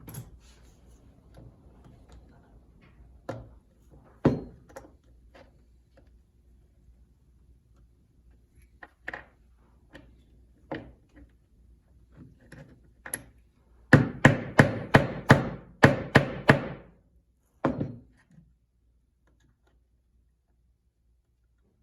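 A wiper seal being tapped into place on a tractor hydraulic cylinder: scattered single taps, then a quick run of about ten hard blows, about three a second, and one more after a short pause.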